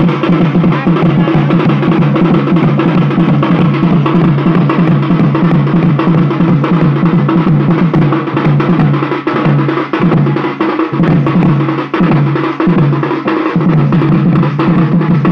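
Folk drums played with sticks, a large barrel drum and a smaller side-slung drum, beating a fast, steady dance rhythm.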